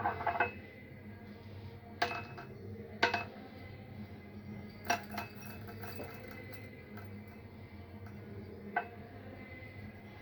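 A drinking glass and small kitchen items being handled and set down on a hard surface: about half a dozen separate clinks and knocks, spaced out by quiet gaps.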